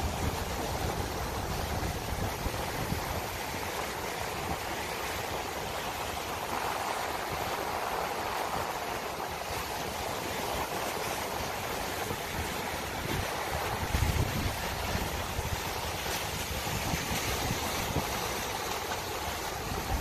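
Ocean surf breaking and washing over rocks and sand, a continuous rush of water, with occasional gusts of wind buffeting the microphone.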